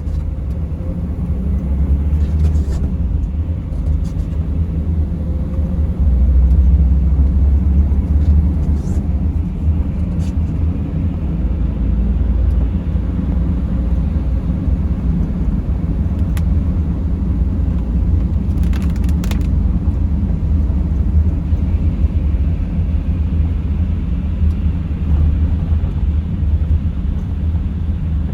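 Steady low road and engine rumble inside a Mercedes Sprinter van's cabin while driving, with a few brief faint higher sounds now and then.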